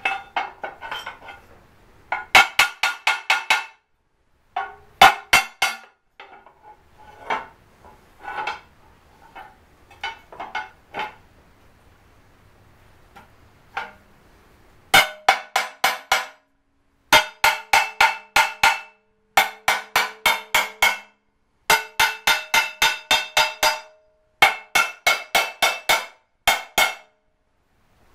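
Hammer tapping on metal in quick runs of about five blows a second, each blow ringing, as an engine adapter plate is seated onto an OM617 diesel engine. The runs stop and start, with fainter, sparser taps in the middle stretch.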